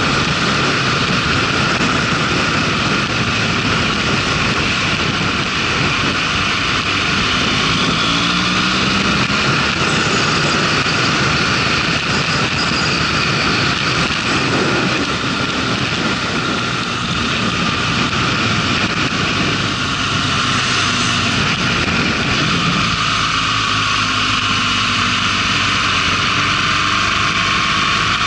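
Wind rushing over a motorcycle-mounted camera at road speed, with the motorcycle's engine running faintly underneath. The low part of the rush eases in the last few seconds as the bike slows from about 80 to 40 km/h.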